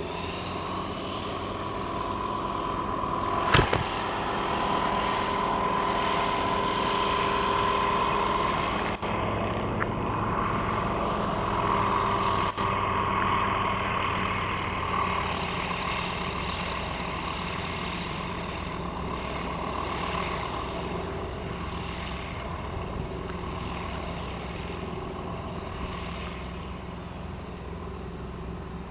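Van's RV-12 light sport aircraft taxiing past, its Rotax 912 flat-four engine and propeller running steadily at low taxi power. The sound grows louder as the plane comes closest and fades slowly as it moves away. A sharp knock comes about three and a half seconds in.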